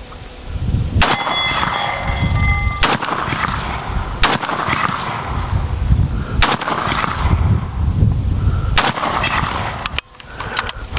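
Short-barrelled Ruger Mini-14 rifle fired unsuppressed, six single semi-automatic shots spaced about one and a half to two and a half seconds apart, each with a loud blast and a low rumbling tail. A faint high ringing tone hangs after the first shot.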